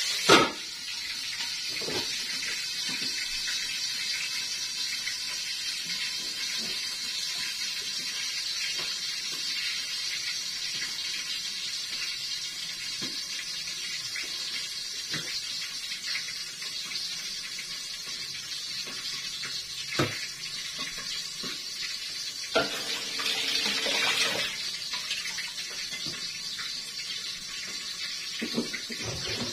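Steady sizzle of food frying in a covered pan on a gas stove. There is a sharp metal clank just after the start as the lid goes on, and a few light knife taps on a board later.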